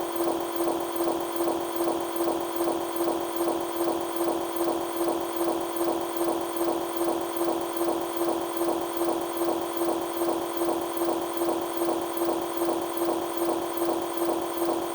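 Japanese railroad crossing warning bell ringing its steady "kan-kan" alarm, one ringing tone struck in a quick, even rhythm.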